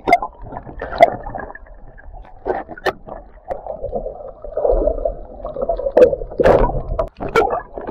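Muffled water sloshing and gurgling heard through a submerged camera, broken by irregular knocks and bumps; it swells loudest about five to six and a half seconds in.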